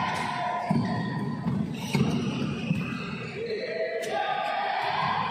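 Badminton rally: sharp racket strikes on the shuttlecock, a few in a row, with shoes squeaking on the court floor.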